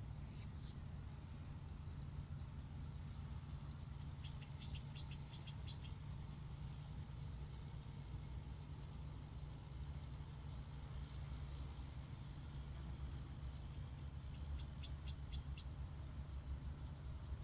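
Faint field ambience: a steady high insect drone over a low rumble, with a bird giving a quick run of chirps about four seconds in and again near the end.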